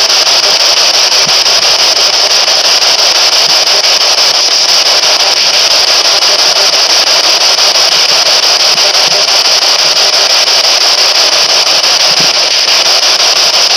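P-SB11 spirit box sweeping through radio frequencies, giving a loud, steady hiss of static with a fast, faint flutter. No broadcast stations are coming through down the mine, so it is bare static.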